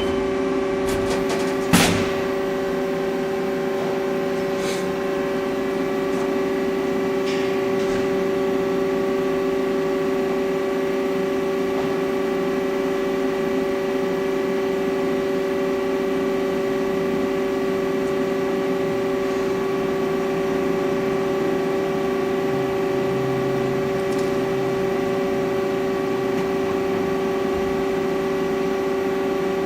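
Haas ST20 CNC lathe powered up and idling: a steady machine hum with one strong drone and several fainter steady tones above it. A single sharp click comes just under two seconds in.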